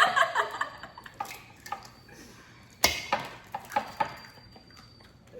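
Kitchen clatter: a few light clicks and knocks of bowls and utensils, with one sharper knock about three seconds in, after the tail of a voice at the start.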